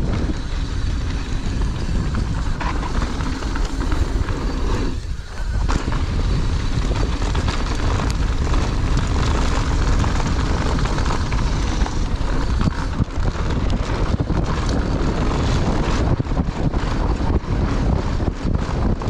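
Wind and riding speed buffeting the microphone of a mountain bike descending a trail, with clicks and rattles from the bike over rough ground. The noise eases briefly about five seconds in.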